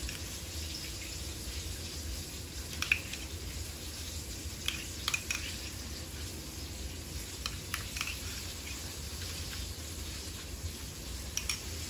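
A metal spoon clinking and scraping against a small ceramic ramekin while dolloping out mayonnaise, a few light scattered clicks over a low steady hum.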